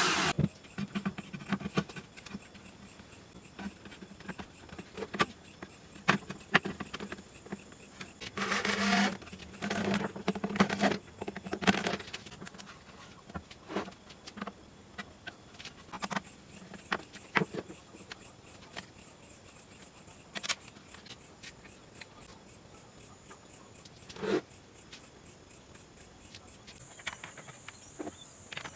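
Scattered light clicks and knocks, with a few short scraping bursts about a third of the way in. A faint steady high whine runs underneath and changes pitch near the end.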